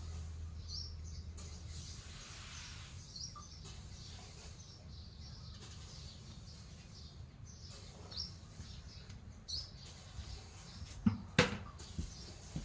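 Bird chirping now and then: short high chirps a second or more apart. A few sharp knocks about eleven seconds in.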